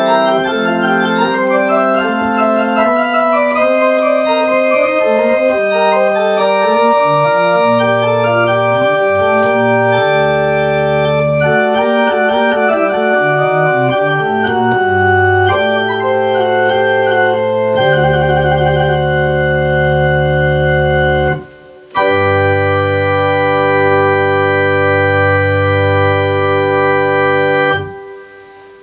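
Digital home organ playing a Baroque piece: sustained chords over moving inner and bass lines, a brief break about 21 seconds in, then a final chord held for about six seconds and released near the end.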